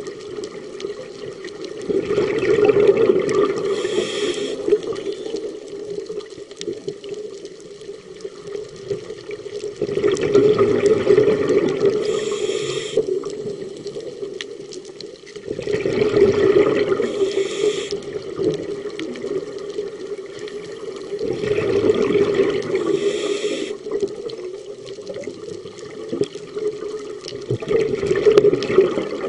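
A scuba diver breathing through a regulator underwater: five bursts of exhaled bubbles about every six seconds, each ending in a brief higher hiss, with quieter water noise between them.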